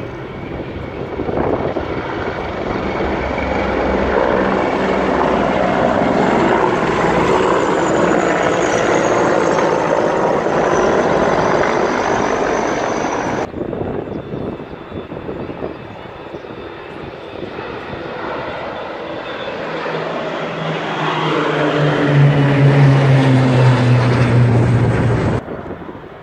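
Military helicopters flying over, their engine and rotor noise swelling to a loud rush and then cutting off suddenly about halfway through. A formation of propeller aircraft then passes overhead, their engine drone growing loud with the pitch falling as they go by, before cutting off abruptly near the end.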